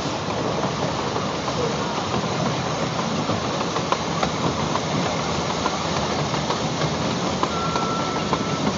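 Small 4-4-0 steam train running along its track, heard from a car behind the locomotive: a steady rumble and clatter of wheels on rails with scattered light ticks. A brief thin squeal comes in near the end.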